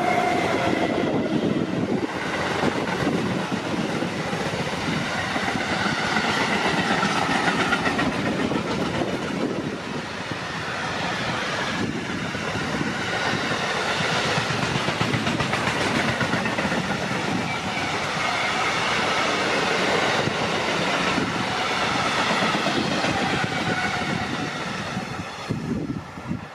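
Container freight train passing close by: an SNCF BB 27000-series electric locomotive (BB 27029), then a long string of container flat wagons rolling past, the noise staying steady and loud.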